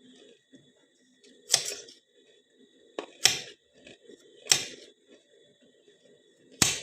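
A knife chopping through a carrot: five sharp chops at uneven spacing, with quieter handling sounds between them.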